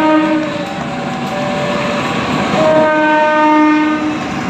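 Diesel locomotive's multi-tone air horn sounding a held blast that breaks off about half a second in, then a second blast from about two and a half seconds to about four seconds, over the rumble and clatter of passenger coaches passing over the crossing.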